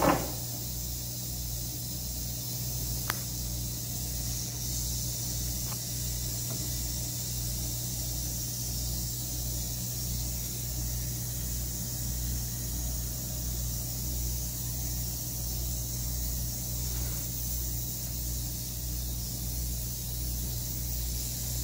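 Eastern diamondback rattlesnake rattling: a steady, high buzz of the tail's keratin segments that keeps on without a break, over a low hum. A sharp knock right at the start and a couple of faint clicks come from the metal snake tongs against the plastic bin.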